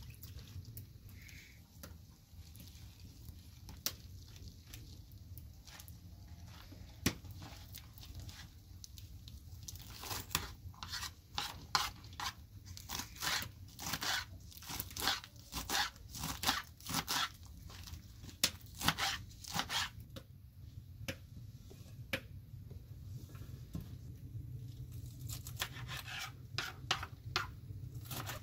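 Kitchen knife cutting through bunches of fresh spinach on a wooden cutting board: a few scattered cuts, then a long run of quick crisp strokes, several a second, in the middle, and more near the end, over a low steady hum.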